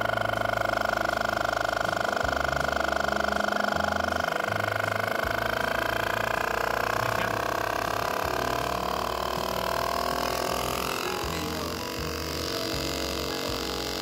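Opened R600 DC fridge compressor running with its shell cut away: a steady, high motor-and-pump whine that slowly falls in pitch over the second half. It is not pumping at all, a fault the repairer traces to a torn valve-plate gasket letting the pressure escape.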